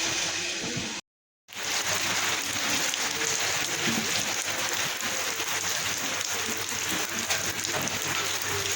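Heavy rain pattering on hard surfaces: a dense, steady hiss of many small drop ticks. The sound drops out for half a second about a second in.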